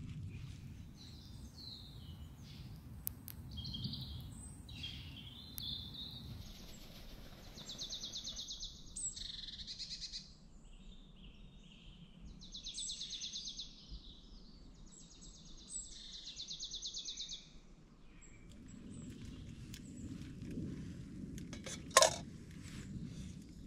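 Woodland songbirds calling and singing, with scattered chirps and three fast trills of a second or two each, over a low background rumble. One sharp knock comes shortly before the end.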